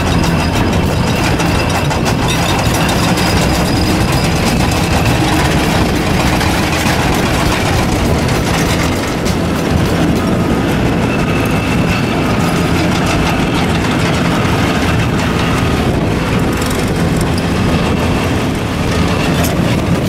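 Several heavy excavators' diesel engines running under load, with rapid continuous hammering as an Xcentric Ripper and a hydraulic breaker pound and break limestone, and rock fragments clattering.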